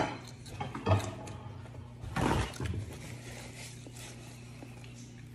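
Quiet sounds of eating a seafood boil by hand: a couple of soft clicks in the first second and a brief wet, squishy rustle about two seconds in, over a faint steady hum.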